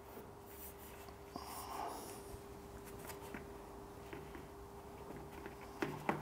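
Faint rubbing and scraping as a stick of cutting compound is worked by hand onto the steel boiler plate around a stay hole, over a steady faint hum. Two small knocks come near the end.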